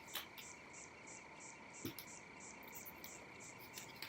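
Faint chirping like crickets: a high chirp repeating about four times a second over a steady faint hum, with a few soft clicks.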